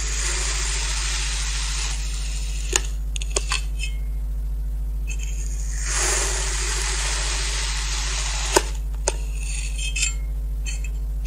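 A wavy metal crinkle cutter pressed down through a block of kinetic sand, twice: each slice is a crunchy, grainy scraping lasting about two seconds, the first at the start and the second about six seconds in. A few sharp clicks follow each slice, and a steady low hum lies underneath.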